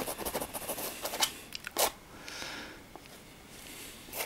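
Palette knife scraping and dabbing thick oil paint on a canvas: short scratchy strokes, a sharper stroke a little under two seconds in, then a longer, softer smear.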